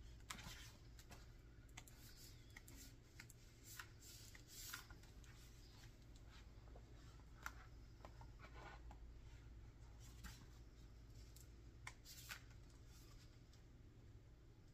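Faint rustling and soft flicks of paper as the pages of an art book are turned, a dozen or so small sounds spread unevenly, over a low steady hum.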